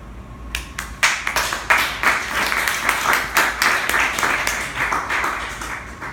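A small audience clapping: a few first claps, then a dense round of applause that lasts about five seconds and stops near the end.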